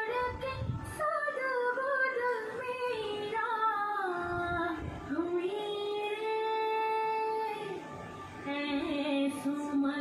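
Recorded Hindi film song playing: a woman's voice sings a melody with wavering ornamented runs and a long held note a little past halfway, over instrumental backing with a low beat near the start.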